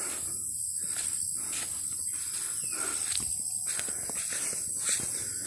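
Steady high-pitched chorus of insects, with scattered soft knocks of footsteps.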